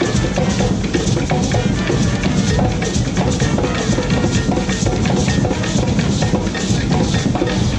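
Loud music with a steady, driving drum and percussion beat.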